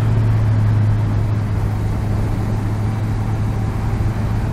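Honda CBR650F's inline-four engine running at a steady cruise with an unchanging hum, under a constant rush of wind and road noise.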